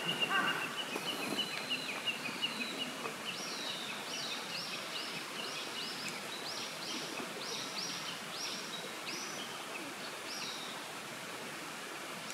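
Outdoor woodland ambience: a songbird repeats a high, downward-sweeping call about a dozen times, a little over once a second, over a steady background hiss. Near the start a crow's last caw and a high descending trill fade out.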